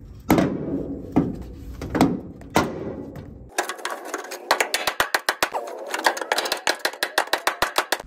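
Small hammers striking the sheet-metal upper cowl panel to knock back a bump for pedal-assembly clearance. There are four spaced blows with a short ring, then a quicker run of taps, several a second.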